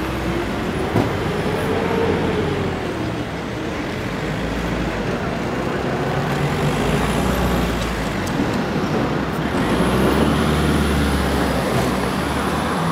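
Street traffic: road vehicles passing close by, the engine rumble swelling and fading several times, loudest near the end.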